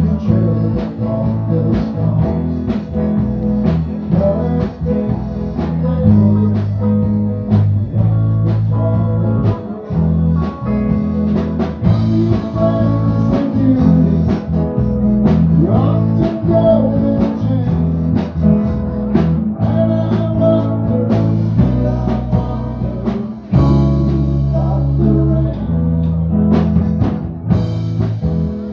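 Live band playing a song with accordion, electric guitar, bass and drum kit, with a steady beat.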